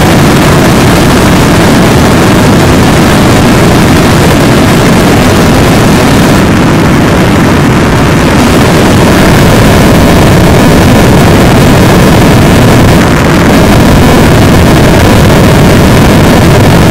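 Harsh noise wall: a dense, unbroken mass of distorted synth noise at full loudness, heaviest in the low end, its top thinning briefly about six to eight seconds in.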